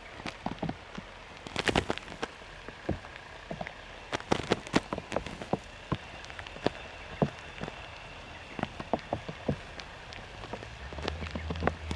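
Scattered irregular taps like raindrops hitting a surface, some loud and close. A steady low rumble comes in near the end.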